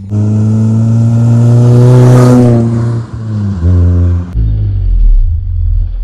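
Modified Maruti Suzuki Baleno's 1.6-litre four-cylinder engine running hard under throttle, its pitch climbing a little and then falling away. About four seconds in the note cuts off sharply and a low rumble follows.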